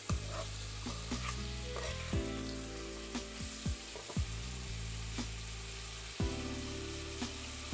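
Mixed vegetables sizzling as they stir-fry in a kadai, with a slotted steel spoon scraping and knocking against the pan several times.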